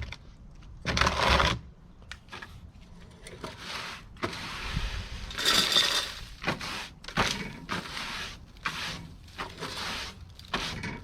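Sweeping dust and mouse-nest debris off a workbench, heard as irregular scratchy brush strokes with a few light knocks in between.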